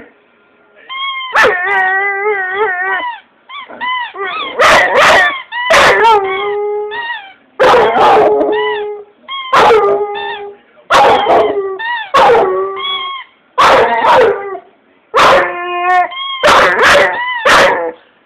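A dog barking and howling in about ten bouts, each a sharp bark that runs into a wavering, drawn-out howl, with short pauses between.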